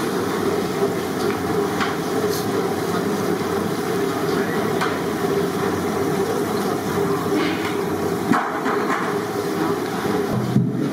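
Battered chicken pakoras deep-frying in a large iron kadai of hot oil, with a dense, steady sizzling and bubbling. A few sharp knocks of utensils stand out a couple of times.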